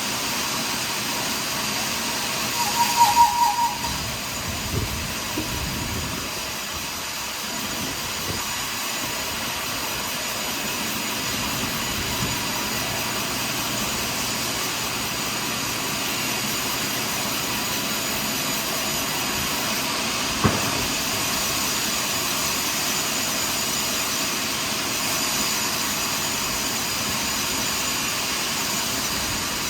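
Portable sawmill running steadily while it saws a large pine log. A short tonal squeal about three seconds in is the loudest moment, and there is a single sharp click about two-thirds of the way through.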